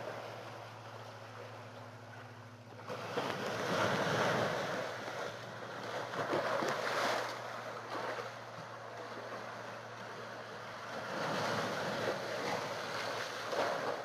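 Sea waves surging and washing against a seawall at high tide, swelling up three times. A steady low hum runs underneath.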